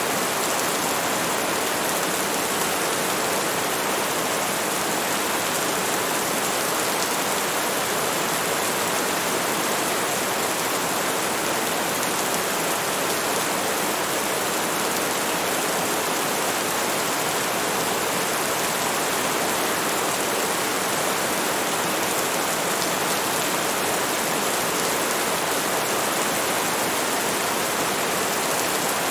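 Steady heavy rain, a dense even hiss that holds at one level with no single drops or thunder standing out.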